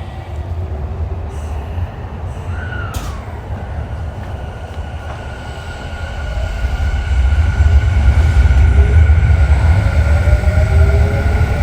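Tokyu 3000 series motor car DeHa 3509 heard from inside, pulling away and accelerating. The inverter and traction-motor whine rises in pitch and grows louder from about six seconds in, over a low rumble from the running gear, with a short squeal and a click near three seconds in.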